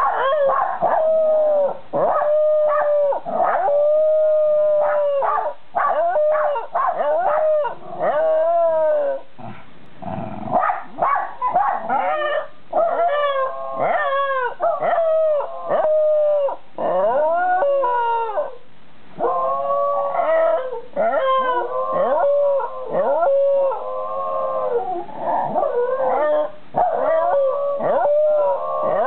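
A white Shiba Inu and a Jack Russell Terrier howling together in a long run of drawn-out howls that slide in pitch and often overlap, broken by short pauses for breath. There is a brief lull about ten seconds in.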